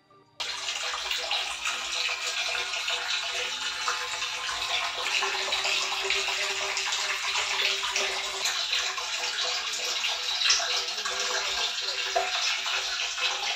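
Water running and splashing in a basin: a steady, dense rush that starts abruptly about half a second in.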